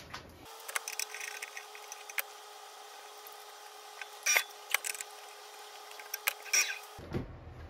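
A wood bowl blank being handled and fitted onto a lathe's metal chuck and woodworm screw: several sharp knocks and scrapes of wood against metal, loudest about four seconds in, over a steady faint hum.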